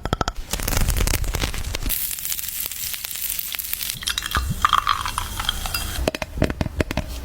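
Close-miked ASMR trigger sounds: crackling, crinkling and rapid tapping on objects, switching to a different trigger every second or two.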